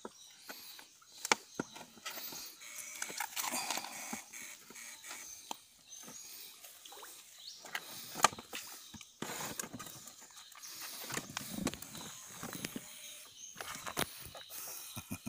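Handling noises of a clear plastic water jug as a live eel is pushed in through its neck: scattered knocks, scrapes and rustles, with a sharp click about a second in and a louder one about eight seconds in.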